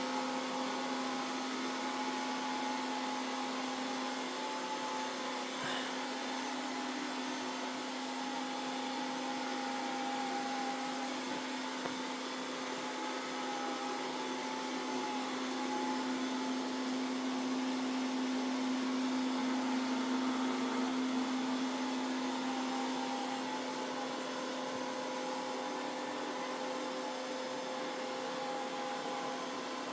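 Mova Z60 robot vacuum-mop running a combined vacuum and mop pass: a steady motor hum with a constant tone, growing a little louder midway and then easing off.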